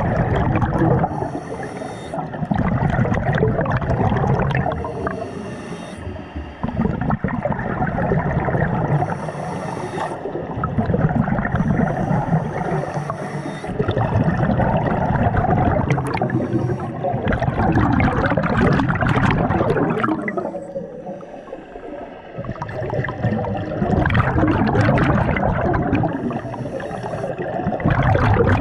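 Scuba diver breathing through a regulator underwater. Exhaled bubbles gurgle and rumble in repeated surges every few seconds, with short quieter breaks between.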